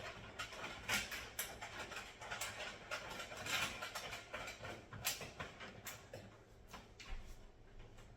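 Irregular clicks, knocks and scraping rattles of metal raised-garden-bed panels and fasteners being handled during assembly.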